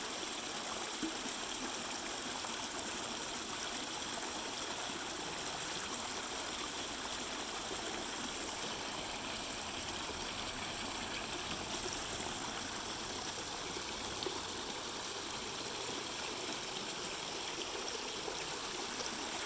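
Fountain water splashing and trickling steadily, an even hiss of falling water with no change.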